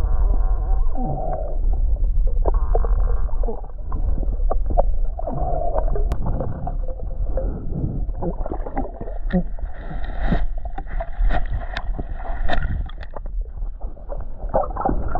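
Muffled underwater noise: a steady low rumble with bubbling and many small clicks and knocks as a diver's hands work a rope around a submerged artillery shell.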